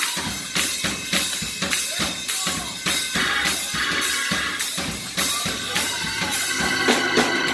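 Live drum kit playing a steady beat, snare and bass drum hits about twice a second under ringing cymbals, as part of band music.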